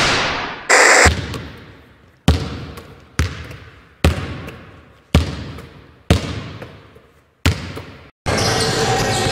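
A basketball bounced slowly on a hard court, about once a second, each bounce ringing out with a long echo as in an empty hall. Near the end it switches to the steady, busy background of a game in a gym.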